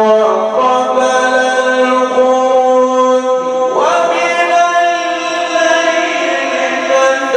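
A man reciting the Quran in the melodic mujawwad style, drawing out one long melismatic held note that glides up to a higher pitch about halfway through.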